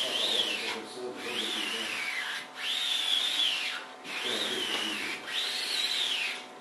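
Squeegee dragged across self-adhesive vinyl film on a refrigerator, about five strokes of a second or so each, every stroke a rubbing scrape with a high squeal that rises and falls.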